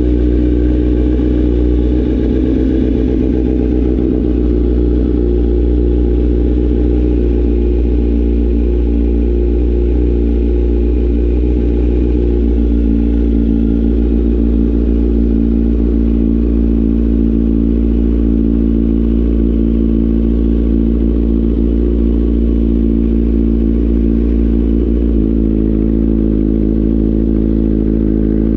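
Kawasaki Z900 SE inline-four engine running steadily at idle through an Austin Racing aftermarket exhaust, its tone shifting slightly about 25 seconds in.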